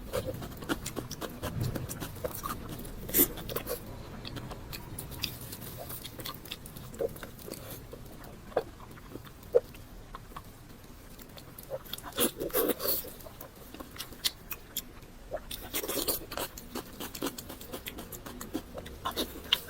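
A person eating: chewing and biting food, with irregular crunches and mouth clicks and louder bursts of crunching about twelve and sixteen seconds in.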